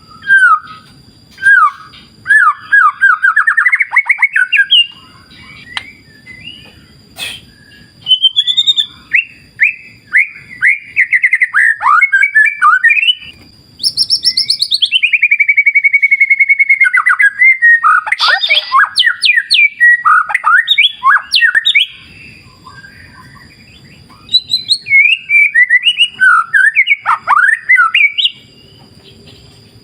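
White-rumped shama (murai batu) singing loud, varied phrases of fast trills, chatters and sweeping whistles, broken by short pauses. About halfway through comes one long whistled note that falls in pitch and then holds.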